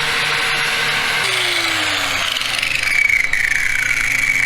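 Angle grinder cleaning bare metal for the welder's ground clamp: it runs with a high whine, winds down about a second in, then grinds again from a little before halfway.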